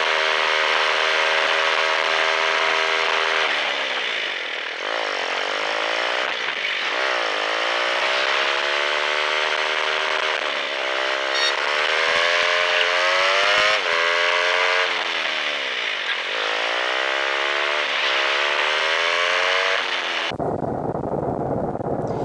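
Royal Enfield Bullet single-cylinder engine running under way, its note climbing under throttle and dropping back several times. About twenty seconds in it cuts abruptly to a low rushing noise of wind on the microphone.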